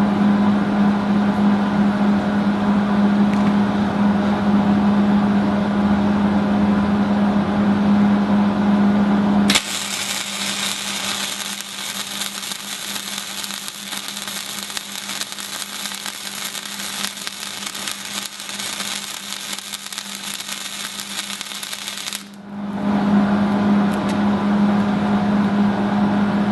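Wire-feed welder in use while running a weld bead: a steady buzzing hum, then about ten seconds in a dense crackling hiss like frying bacon for around thirteen seconds. The hiss cuts off suddenly and the hum returns.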